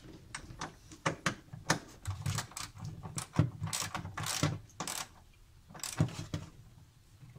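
Hand socket ratchet clicking in short, irregular runs of quick clicks, with a few sharper metal clinks, as bolts are driven in and tightened.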